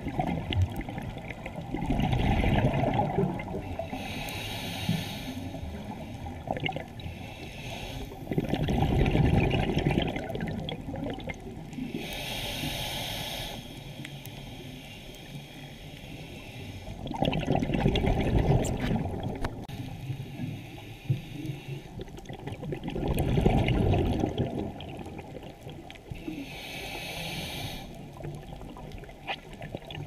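Scuba diver breathing through a regulator underwater: four bubbly, gurgling exhalations several seconds apart, with hissing inhalations between them. This slow in-and-out rhythm is the snore-like sound that the moray eel seems to make.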